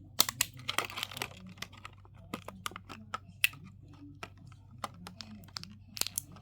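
Small plastic cosmetic cases from a children's makeup set clicking and clattering as they are taken out of their box one by one, with a brief rustle of packaging about a second in.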